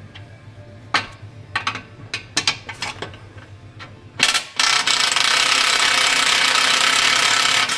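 Metal tool clicks and knocks, then an air impact wrench runs steadily for about three seconds and stops abruptly, loosening the car's exhaust fasteners.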